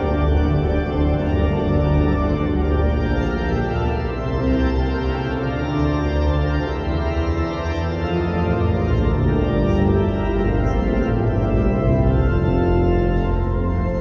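Organ music playing held chords that change every few seconds.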